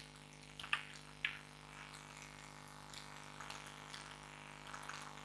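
Faint, scattered computer keyboard key clicks, a cluster about three and a half seconds in and more near the end, over a steady low electrical hum.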